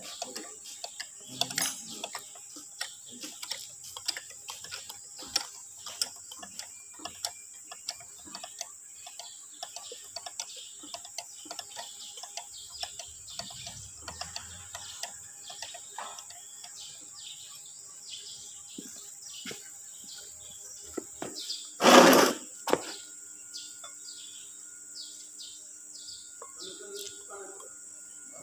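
Irregular light metallic clicks and taps of hand tools working on a Perkins diesel engine block, with one loud metal clank about two-thirds of the way through. A steady high chirring of insects runs underneath.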